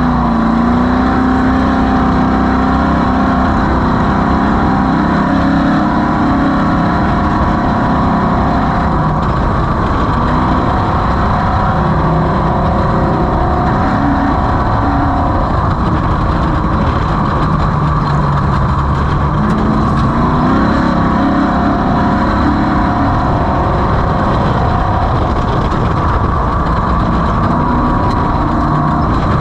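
Off-road race vehicle's engine running hard at steady high revs, its pitch rising and dipping a little, over a constant rushing noise.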